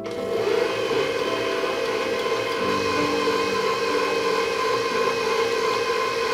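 Bowl-lift stand mixer's motor running steadily at low speed, its dough hook turning and kneading steamed glutinous rice into mochi.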